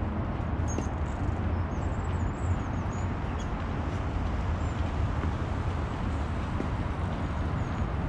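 Steady low outdoor rumble with faint high bird chirps now and then.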